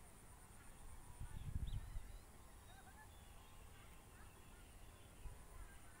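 Faint birds calling outdoors: scattered short chirps and whistles. A low rumble of wind on the microphone swells between about one and two seconds in.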